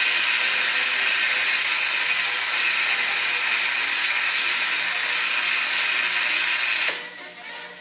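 High-voltage discharge from a 1930s diathermy machine's cauterizing output, heard as a loud, steady hiss that cuts off suddenly about seven seconds in.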